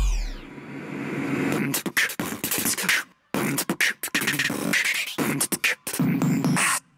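Dance track in a beatbox-style vocal percussion break: choppy mouth-made beats and vocal sounds that stop dead for a moment a little past three seconds and again near the end. It opens on the tail of a falling electronic sweep.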